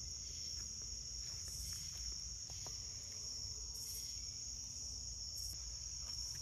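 Crickets chirring in a steady high-pitched chorus, with a few faint ticks and a low rumble underneath.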